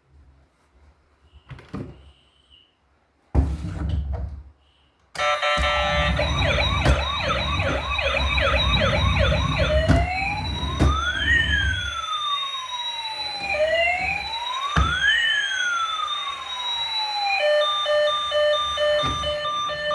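Electronic siren from a battery-powered toy emergency vehicle: after a short low rumble, a fast warbling yelp starts about five seconds in, changes to a slower wail that rises and falls twice, then to a steady repeating beep pattern near the end.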